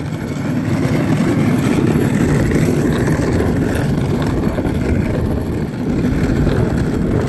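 Hard plastic wheels of a toddler's ride-on push car rolling over rough asphalt, a loud steady rumble with a brief dip a little before the end.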